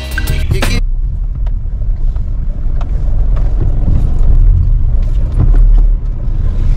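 Low, steady rumble of a car's engine and tyres heard from inside the cabin, with a few faint light ticks, as the car creeps forward and comes to a stop.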